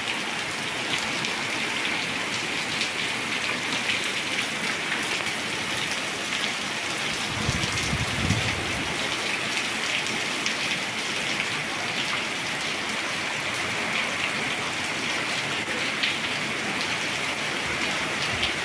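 Steady rain falling on a paved street and parked cars, an even hiss of drops throughout. A brief low rumble comes about eight seconds in.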